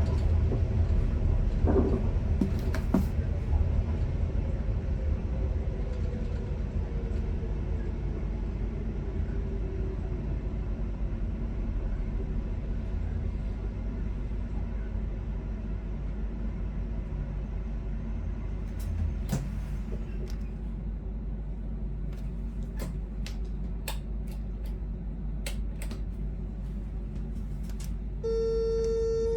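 Inside the driver's cab of a Stockholm commuter electric train under way: a steady low rumble of the running train, with a whine that falls in pitch a few seconds in and scattered clicks later on. A steady cab beep starts near the end.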